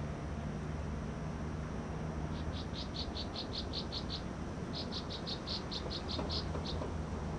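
Wild chirping: two runs of quick, high, evenly spaced chirps, about five a second, each run about two seconds long, over a steady low hum.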